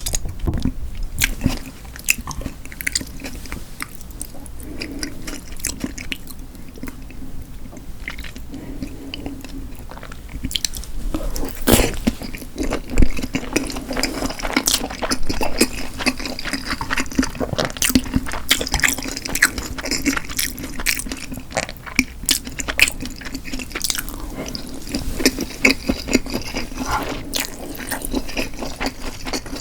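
A person chewing food close to the microphone, with many small mouth clicks and smacks throughout.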